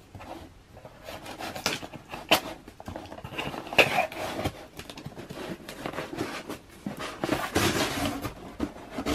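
A folding knife slitting packing tape along the seam of a cardboard shipping box, with cardboard scraping and rustling and a few sharp clicks. Near the end the box lid is pulled open.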